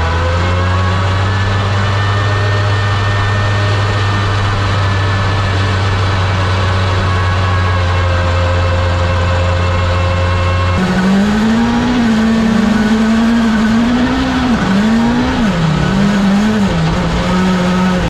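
Hyundai i20 N Rally1 Hybrid's turbocharged four-cylinder engine, heard onboard. For about the first eleven seconds it holds one steady note. Then the sound changes abruptly and the revs rise and fall as the car is driven.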